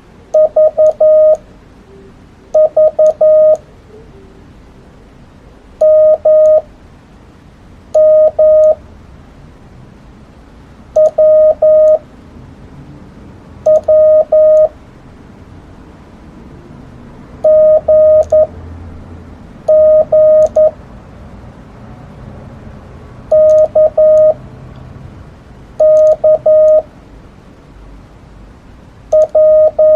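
Morse code sidetone: a single mid-pitched beep keyed from a paddle key in short groups of dits and dahs, one Korean Hangul character per group, with a pause of a second or two between characters. Faint clicks come with each group.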